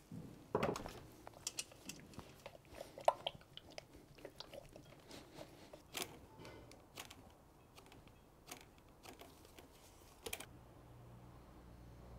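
Faint scattered clicks and light knocks of metal paint tins, a wooden folding ruler and a stirring stick being handled while two-part primer is measured out for mixing. A faint low steady hum sets in near the end as the base starts to pour into the mixing tub.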